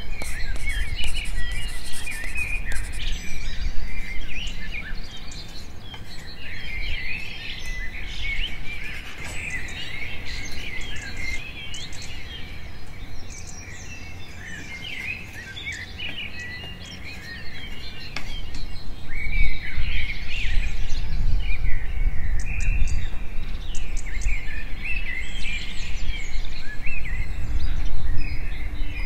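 Many small birds chirping and singing at once, in quick overlapping trills and chirps, over a low rumble that grows louder about two-thirds of the way through.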